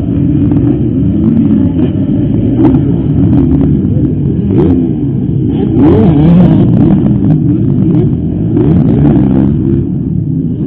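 Several motocross bikes racing, their engines revving up and down with overlapping, rising and falling pitches.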